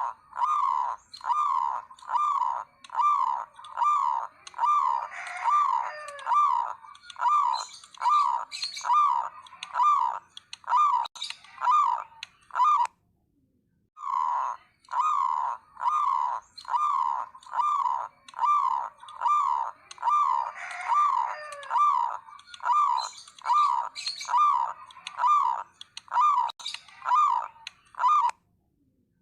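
Zebra doves cooing in a steady run of repeated notes, a little over one a second, in the continuous 'nguwor' style, with fainter higher calls behind. The run breaks off for about a second midway and then starts again.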